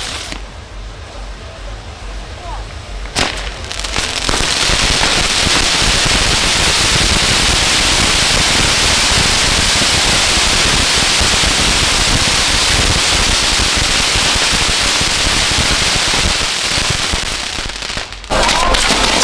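Maltese ground fireworks, dense crackling and hissing that builds in with a sharp crack about three seconds in and runs loud and continuous, dipping briefly near the end before starting up again abruptly.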